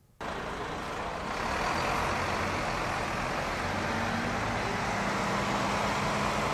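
Town-centre street traffic with buses: a steady rush of road and engine noise that starts abruptly, with a low steady hum joining in the second half.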